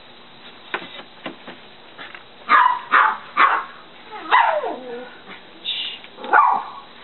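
A dog barking about six times in short sharp barks, one of them near the middle trailing off into a falling whine. A few light knocks come first, as a rollator walker is pulled over a door threshold.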